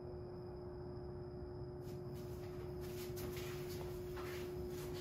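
A steady hum, joined about two seconds in by irregular rustling and scattered clicks.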